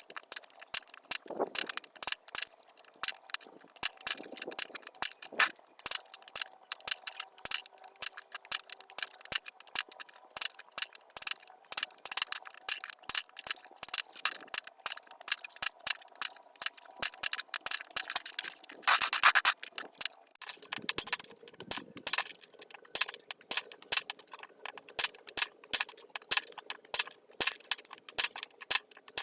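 Small pieces of firewood clattering and knocking together in a rapid, irregular stream of clicks, several a second, with a louder burst about two-thirds of the way in and a faint steady tone underneath.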